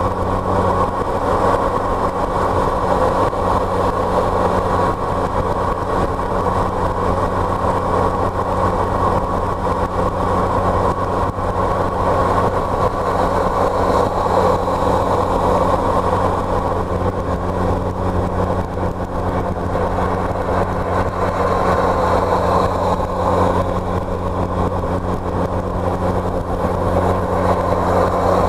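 A car driving at a steady speed: an even engine drone that holds its pitch, under road and tyre noise.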